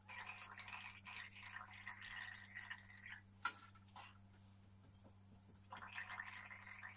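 A woman gargling with diluted Rotokan herbal rinse to soothe a sore throat. There is a faint bubbling gargle for about three seconds, a short break as she spits, and then a second gargle that starts near the end.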